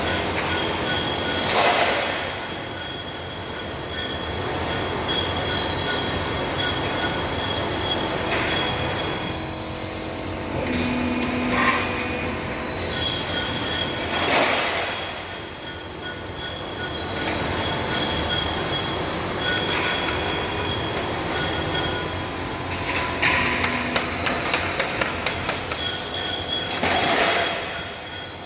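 Steel roll forming machine running, with sheet steel passing through its roller stands. A continuous metallic clatter carries steady high tones, and louder metallic swells come about every twelve seconds.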